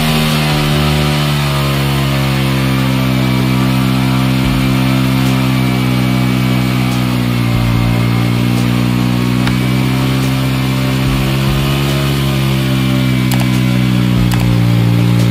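Motorcycle engine running steadily under throttle as the rear tyre spins in a burnout, its pitch dipping and rising slightly a few times. A few faint clicks near the end.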